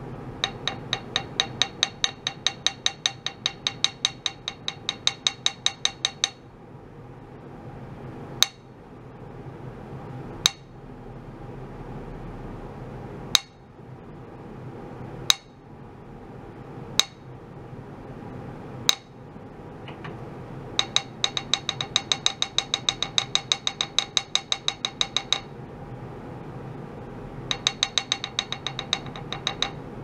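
Small wooden mallet tapping a metal plate, each tap ringing briefly with a metallic clink. It comes in quick runs of about five taps a second, with six single taps about two seconds apart in the middle stretch.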